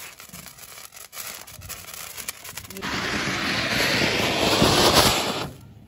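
Ground fountain (anar) firework spraying sparks with a loud, steady hissing rush that starts about halfway through, grows louder, and stops abruptly near the end. Before it there is the faint crackle of a handheld sparkler.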